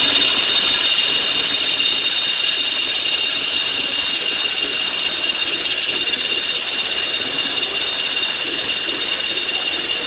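CNC lathe running after being started, with a steady high-pitched whine over a mechanical hum; the whine switches on just before and holds unchanged.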